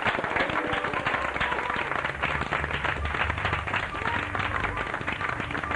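A group of people clapping and applauding. Soft music with low sustained notes comes in underneath from about a second in.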